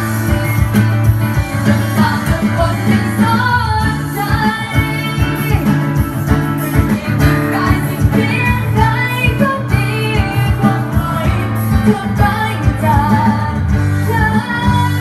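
Live song: a woman singing into a microphone over acoustic guitar, played through PA speakers.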